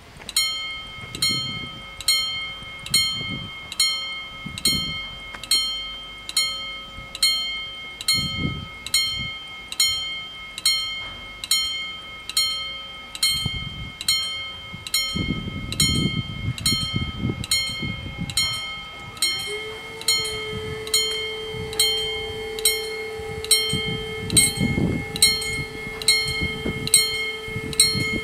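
Level-crossing warning bells ringing in a steady, even series of strikes as the crossing activates. A steady lower tone joins about two-thirds of the way through.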